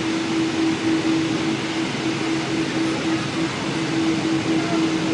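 Steady cabin noise inside a Boeing 777-200ER on the ground before takeoff: an even rushing hiss with a constant low hum running through it.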